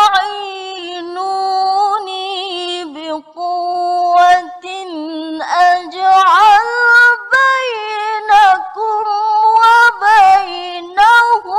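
A woman's solo voice chanting Quranic recitation in the melodic tilawah style, holding long notes that waver and slide in pitch, with short breath breaks between phrases.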